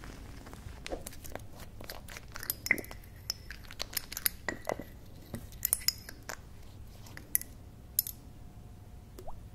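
Small glass bottles being handled: a string of sharp clinks and taps of glass on glass and on the wooden tabletop, a few of them ringing briefly.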